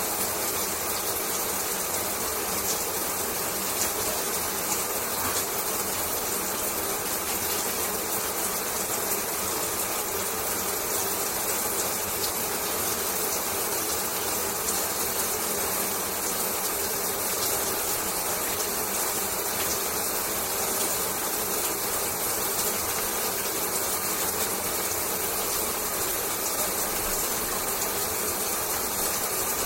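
Shower water running steadily, a constant spraying hiss with faint patter.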